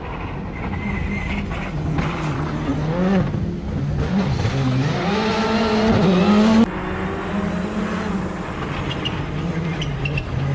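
Rally car engine revving hard, its pitch climbing and dipping repeatedly through gear changes as the car approaches at speed. The loud rising note cuts off abruptly just past the middle, and a steadier engine sound carries on.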